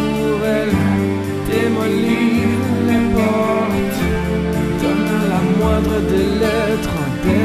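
Music: the instrumental break of a French pop song, with a steady drum beat under a lead melody that slides up and down in pitch.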